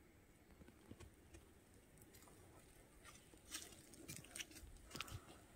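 Faint scattered crackles of dry leaf litter underfoot, growing more frequent from about halfway through, over an otherwise near-quiet forest.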